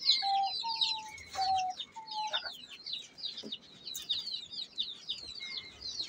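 Aviary birds calling: a dense, steady stream of quick, high, downward chirps, with four short, steady, lower notes in the first two and a half seconds.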